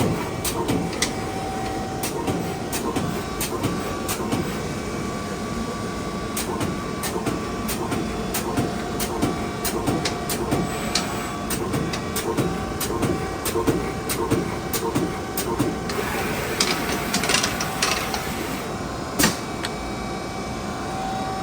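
LVD/Strippit U-1000-XP CNC turret punch press running, with a steady hum under sharp strikes at uneven intervals as it punches, and a busier stretch of clatter about sixteen seconds in.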